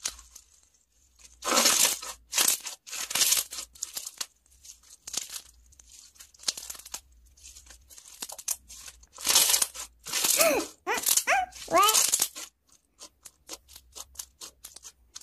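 Hands squishing, pressing and stretching a thick teal slime with small bits mixed in: sticky, wet crackling in irregular bursts, with many short sharp clicks.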